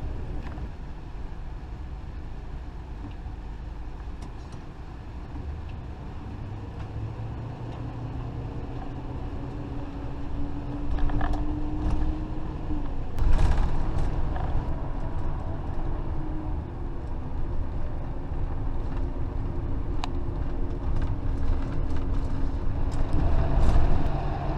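Class A motorhome driving: a steady engine and road rumble that grows louder as it picks up speed, its engine note rising a little, with a few knocks and rattles.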